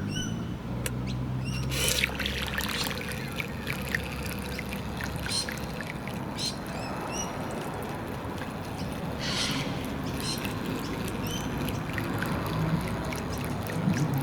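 Birds chirping in short calls, scattered throughout, over the steady trickle of water at a pond's edge. A low steady hum runs through the first few seconds.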